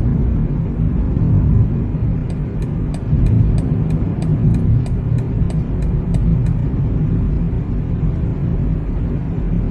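Car interior with a steady low road and engine rumble while driving. From about two seconds in, the turn-signal indicator ticks evenly about three times a second for roughly four seconds, then stops.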